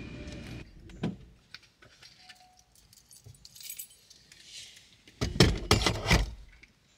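Keys jangling and clinking as they are handled in a car's front seat: a single click about a second in, a few faint handling sounds, then a loud burst of jangling and rattling near the end.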